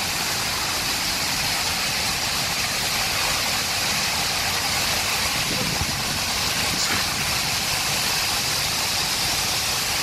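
Steady rush of Skógafoss, a large waterfall, heard from the spray at its base, with wind and spray buffeting the wet microphone in a low rumble.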